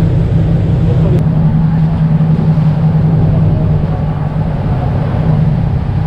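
Passenger ferry underway: the engine's steady low drone, with a rush of wind and churning water on the open deck.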